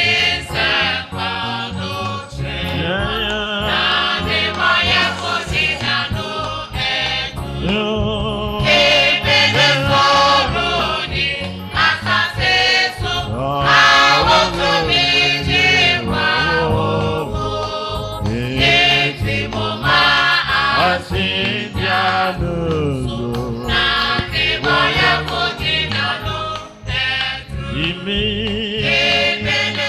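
Gospel music: a choir singing with instrumental backing.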